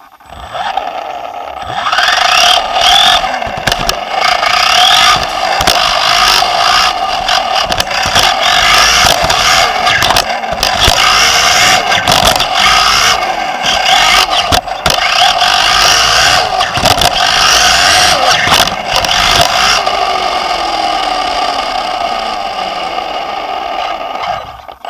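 Onboard sound of a Team Associated B5M 2WD electric RC buggy racing: the Nosram Comet HD motor and drivetrain whining up and down in pitch with the throttle, with frequent sharp knocks from jumps, landings and bumps. It starts up suddenly at the beginning and falls away near the end.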